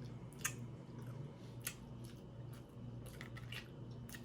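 Quiet chewing, with a few scattered short sharp clicks about a second apart.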